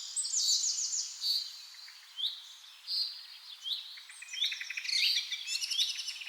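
Small birds chirping and trilling: many quick, high calls, several overlapping, with no low sound beneath them.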